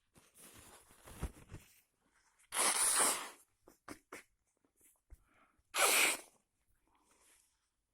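A person with a cold giving two big sneezes about three seconds apart, with quieter breathy sounds before them.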